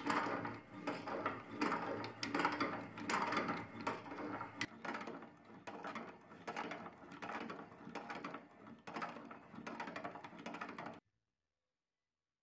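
Restored hand-cranked meat grinder being turned while empty: its auger and crank click and grate metal on metal, rising and falling with each turn. It cuts off suddenly near the end.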